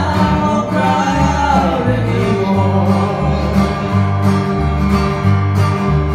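Live acoustic duo: acoustic guitars strummed through a small PA with a voice singing a slow song, one sung line falling away about two seconds in.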